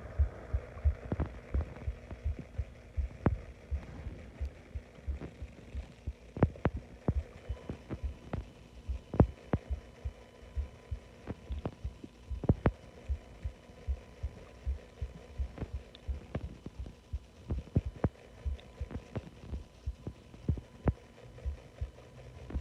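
Bloated stomach and intestines gurgling, recorded close against the belly: an irregular stream of small pops, clicks and low thumps several times a second.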